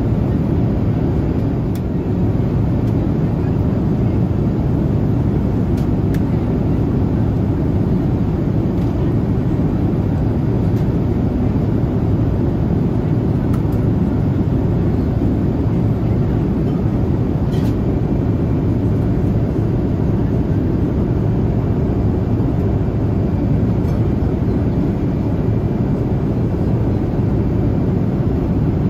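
Steady cabin noise of a Boeing 787-8 in flight: an even, low rush of engine and airflow noise, with a few faint clicks.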